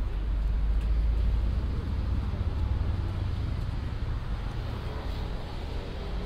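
Street traffic noise: a motor vehicle's low engine rumble, strongest over the first three seconds and then easing off.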